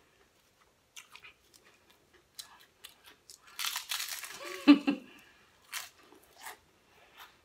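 Pringles potato crisps crunched and chewed in the mouth in irregular crackly bites, busiest about three and a half seconds in. A short hummed vocal sound comes just before five seconds.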